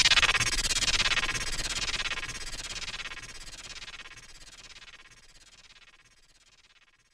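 DJ sound effect: a noisy whoosh with repeated falling sweeps and a fast flutter, fading out over about five seconds.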